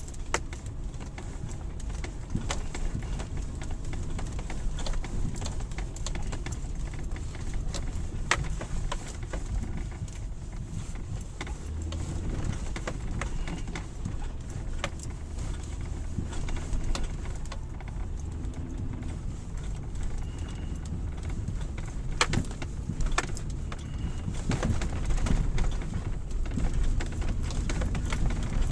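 A car driving slowly over rutted, frozen snow, heard from inside the cabin: a steady low rumble of engine and tyres, broken by frequent knocks and crunches as the wheels and underbody hit the ice ruts.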